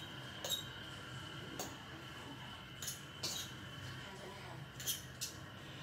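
Light clinks of a cooking utensil against a pan on the stove, about six short taps scattered through, over a faint steady hum.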